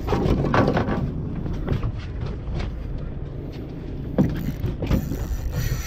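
Knocks and clatter of gear being handled on a fishing boat's deck, over a steady low rumble. A cluster of clatter comes in the first second and a single sharp knock a little after four seconds.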